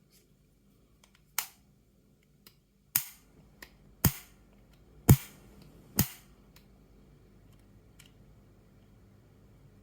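A series of sharp clicks: five louder ones about a second apart from the start, with fainter ticks between them, then only faint background.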